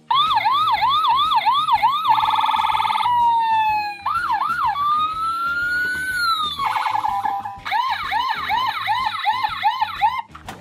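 Imaginext Rescue Heroes toy fire truck playing its electronic siren sound effect, set off by a press on the truck. It goes from quick rising-and-falling whoops, about three a second, to a fast warble, a slow wail that rises and then falls, a second fast warble, and whoops again, then cuts off suddenly near the end.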